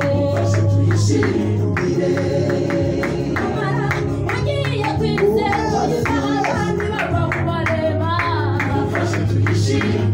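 Several women's voices singing together through microphones over amplified instrumental accompaniment with a steady beat and a deep bass line.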